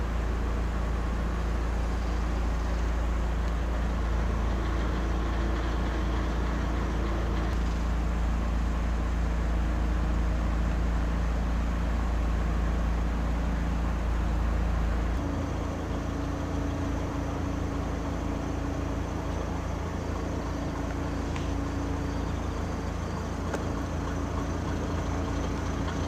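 Steady diesel engine drone heard from inside a railway passenger car, with a deep hum. About fifteen seconds in the tone changes: the deepest hum falls away and a higher steady note takes over.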